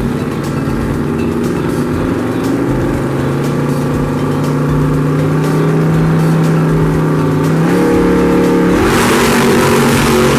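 Ford Mustang Cobra Jet drag car's V8 engine running at the starting line, revs held and raised in two steps. About nine seconds in it goes to full throttle as the car launches, with a loud burst of noise.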